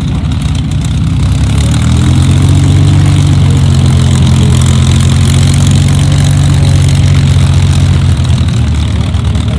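A Supermarine Spitfire's Rolls-Royce Merlin V12 engine runs at low power as the fighter taxis past, its propeller turning. The steady, deep engine note gets louder about two seconds in as it comes closest, then eases off a little near the end.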